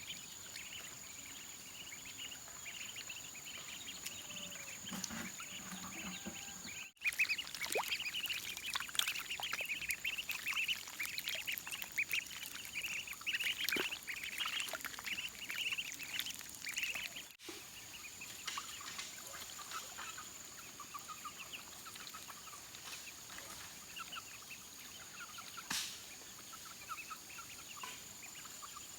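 Many poultry calling at once, a dense chatter of short high peeps and chirps. They are busiest in the middle stretch, with a thin steady high tone underneath.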